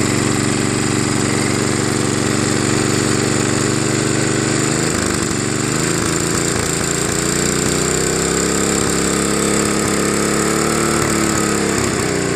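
5 hp Tecumseh horizontal-shaft small engine running smoothly on a replacement carburetor, unmounted. Its speed holds steady, dips about five seconds in, climbs again and eases back near the end.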